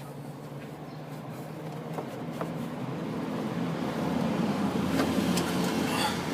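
A steady low motor hum, like a vehicle engine running nearby, grows louder over a couple of seconds. A few light metallic clicks of tool work are heard against it.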